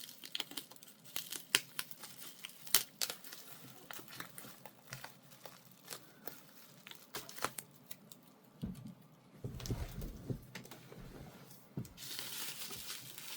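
Paper and plastic packaging crinkling and tearing as items are unwrapped by hand: many short sharp crackles, a dull bump about ten seconds in, and a longer rustle near the end.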